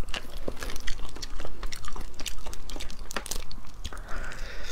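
Cooked shellfish shells cracking and crunching as they are pulled apart by hand and bitten, with close-up chewing between the cracks. The cracks come in quick irregular clusters.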